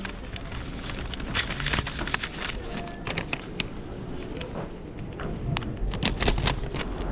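Paper and banknotes rustling and crinkling close to the microphone as they are handled, with many short clicks and taps scattered through.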